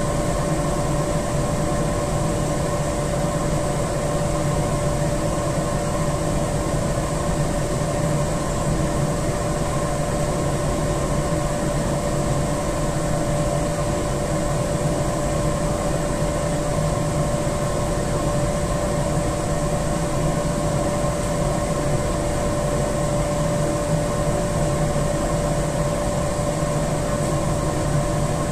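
Steady hum of boiler-room machinery running, with one clear steady tone over a constant rushing noise.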